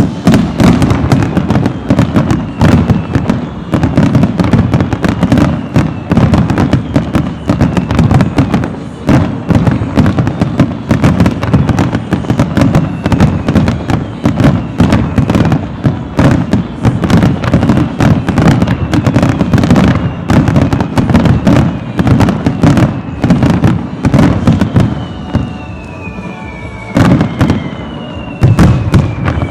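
Fireworks show: a dense, rapid barrage of shells bursting one after another with deep booms, easing briefly about 26 seconds in before the bursts pick up again.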